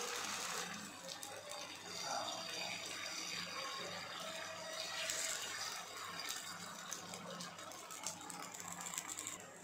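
Dosa batter sizzling on a hot nonstick tawa as a ladle spreads it in circles, a steady hiss with light scraping of the ladle.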